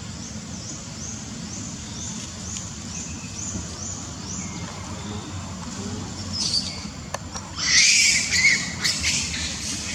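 Faint high chirps repeat about twice a second, then from about eight seconds in a monkey screams with loud, shrill squealing calls, as happens when one monkey chases others away from food.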